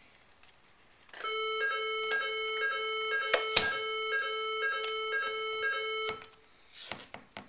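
An electronic tone pattern: a steady note with a higher note beeping on and off about twice a second. It starts about a second in, lasts about five seconds, and cuts off abruptly.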